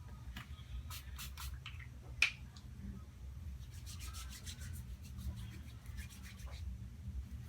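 Medical equipment being handled and put away: a scatter of small clicks and rubbing rustles, with one sharper click about two seconds in, over a steady low hum.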